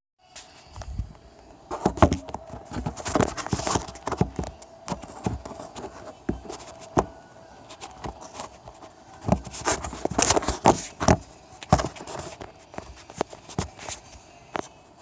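Irregular knocks, clicks and light clatter, a few sharper ones around two, three, ten and eleven seconds in, over a faint steady hum.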